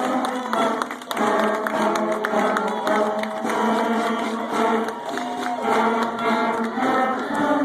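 Elementary school band of 4th and 5th graders playing a tune, several instruments holding notes together, with a short break in the music about a second in.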